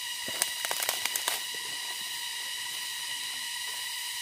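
A quick run of sharp crackles and snaps in the first second or so as a bamboo shoot and its dry sheaths are broken out and handled. Behind it there is a steady high-pitched whine with several even tones.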